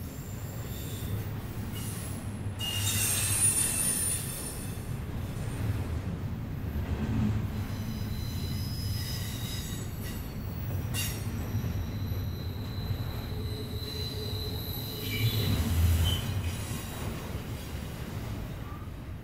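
Double-stack intermodal freight cars rolling past close by: a steady low rumble of steel wheels on rail, with high-pitched wheel squeal coming and going. It swells louder about three seconds in and again near sixteen seconds, with a single sharp clank about eleven seconds in.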